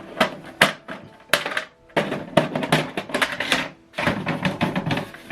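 Rapid, irregular plastic clicking and clattering from the HP DeskJet 2630 inkjet printer's mechanism, just after its cartridges have been installed and the cover closed.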